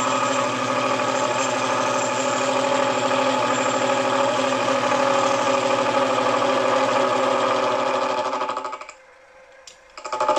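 Bench milling machine running, its gear cutter milling a tooth space in a gear blank held in a dividing head, taking the half-depth first pass. The steady running drops away about a second and a half before the end, then comes back.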